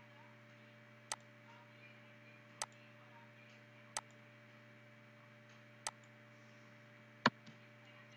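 Five single computer mouse button clicks at irregular intervals, the last one the loudest, over a faint steady hum.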